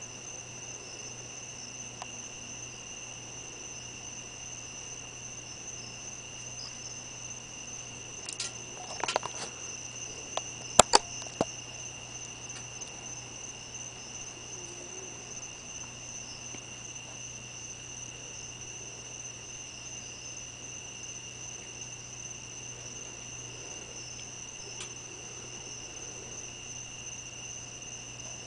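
Night insects trilling steadily in a high, continuous chorus, over a low steady hum. A few sharp clicks and knocks come about nine to eleven seconds in and are the loudest sounds.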